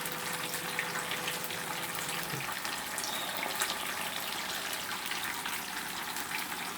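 Food frying in hot oil: a steady sizzle with many small crackles. A low hum cuts off about two and a half seconds in.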